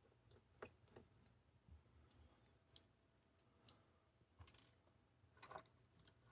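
Faint, scattered clicks and ticks of small laptop screws and a screwdriver being handled during screen disassembly, with a brief cluster of clicks about four and a half seconds in.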